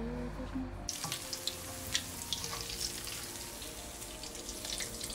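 Hot oil sizzling with scattered crackles in a pan on the stove as lentil fritters for dahi bhalle fry, starting about a second in.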